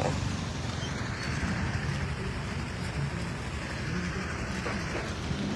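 Steady outdoor background rumble of distant road traffic.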